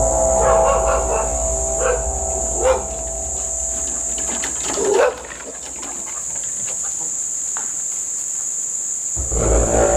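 A loud, deep droning hum made of several steady layered tones, the unexplained noise reported as coming from the sky, with dogs whining over it about four times in the first half. The drone fades away around the middle and comes back loudly near the end.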